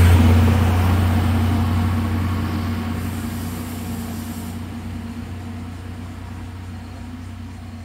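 Alishan Forest Railway diesel locomotive and its train moving away after passing close by. A steady low engine drone fades gradually as the train recedes down the track.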